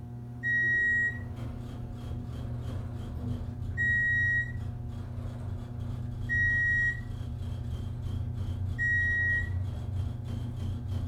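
A geared traction elevator car descends at a steady low hum. A short single-pitch electronic beep sounds four times, about two and a half seconds apart: the floor-passing tone, one beep for each floor the car goes by.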